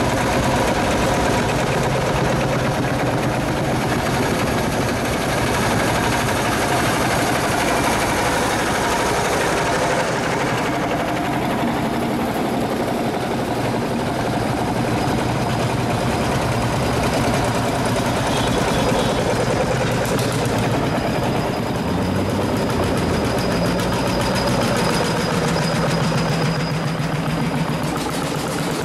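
Vintage single-cylinder two-stroke diesel tractor engines chugging past one after another with a fast, steady pulse.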